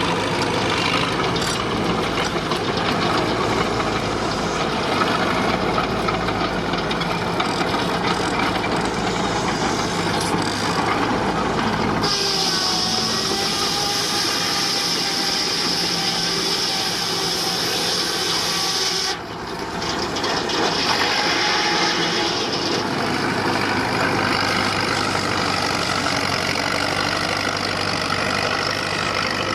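Sawmill driven by a 19-65 Uniflow Baker steam traction engine, running steadily. About twelve seconds in, a high-pitched sound sets in suddenly and holds for about seven seconds as the saw cuts through a log. It stops abruptly, and a softer cut follows.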